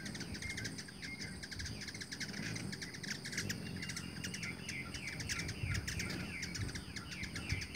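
Birds chirping. From about three seconds in, the chirps come as a fast run of short falling notes, about four a second.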